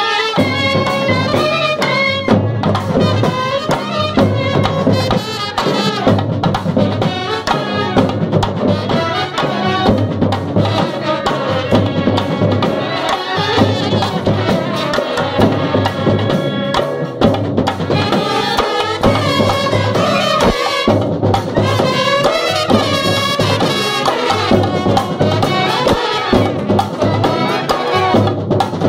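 A Kerala bandset, a brass band with drums, playing loudly and without a break: brass instruments carry a melody over a steady beat of drums.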